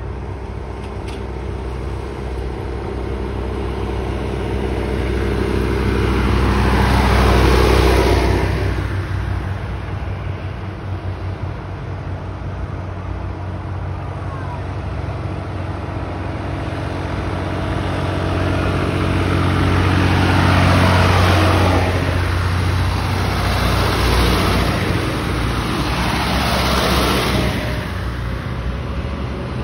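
A procession of tractors driving past one after another, their engines running steadily. The sound swells and fades as each passes close, loudest about seven seconds in and again about twenty seconds in, with two more passes near the end.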